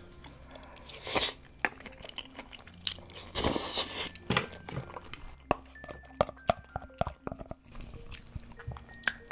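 Close-miked eating: two loud slurps of wide Chinese glass noodles, about a second in and again around three and a half seconds, then chewing with many short wet mouth clicks.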